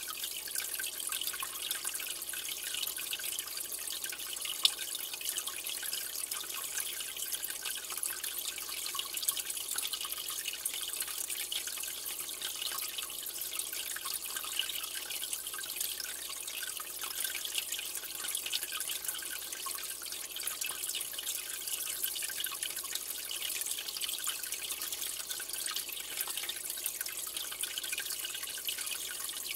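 Aquarium water trickling and dripping steadily, with many small splashes and one louder drip about four and a half seconds in.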